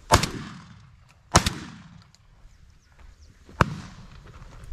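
Three 12-gauge shotgun shots: two loud ones about a second and a quarter apart, each trailing off in a long echo, then a third, shorter and a little quieter, about two seconds later.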